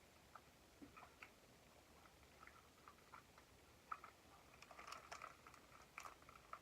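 Faint eating sounds: scattered soft clicks and smacks of chewing and food being handled, busier about four seconds in.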